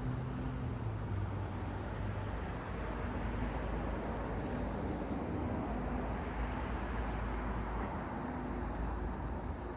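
Road traffic noise: a vehicle's low engine hum fades in the first couple of seconds, and tyre noise from passing cars swells and then fades around the middle.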